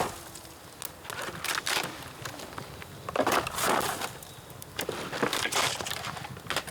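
Crunching and rustling of bamboo branches and leaves, in irregular bursts with a few sharp snaps.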